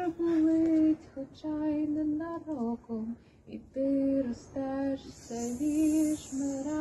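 A woman singing a slow melody solo, in long held notes with short breaks between phrases.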